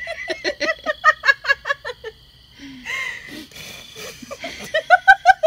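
A woman giggling in quick, rhythmic bursts. She eases off about two seconds in and starts laughing again near the end.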